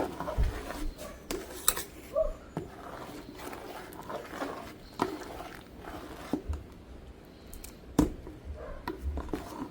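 Scattered light knocks and clicks of handling, a few seconds apart, the sharpest about eight seconds in.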